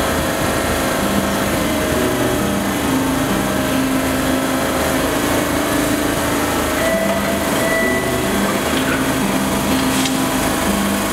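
MBTA Red Line subway train standing at the platform, its onboard equipment running with a steady mechanical drone and a low hum that shifts pitch in steps. The car doors slide shut near the end.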